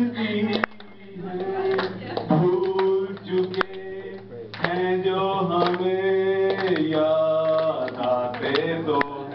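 A man singing a slow song into a hand-held microphone, holding long drawn-out notes with short breaks between phrases.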